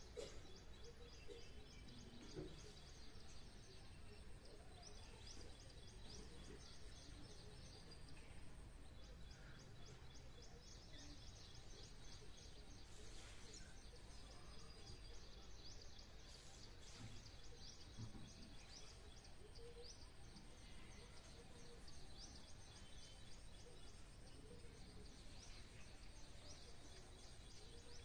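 Faint outdoor ambience with a continuous stream of rapid high-pitched chirping over a low steady background hum.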